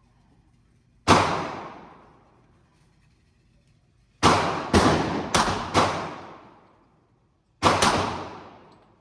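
Gunshots at a shooting range, each with a long echoing tail. There is a single shot about a second in, then four in quick succession a few seconds later, then a quick pair near the end.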